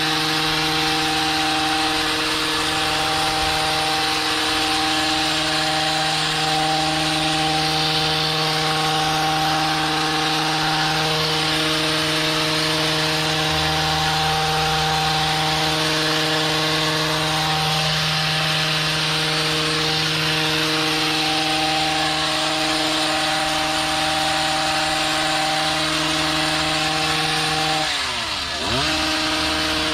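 Two-stroke gas hedge trimmer running steadily at full throttle while trimming overgrown shrubs. Near the end the throttle is let off and the engine pitch drops, then it revs straight back up.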